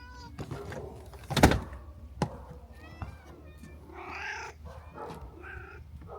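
A cat meowing twice, in the second half, after a single loud thump about a second and a half in.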